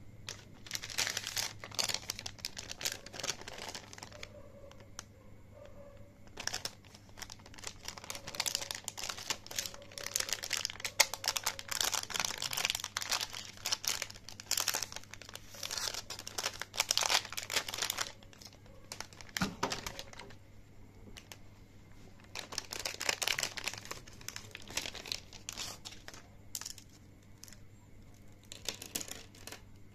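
Thin clear plastic packaging crinkling and tearing as it is handled and torn open to get at a set of pens, in irregular stretches of crackle with a short lull a little past the middle.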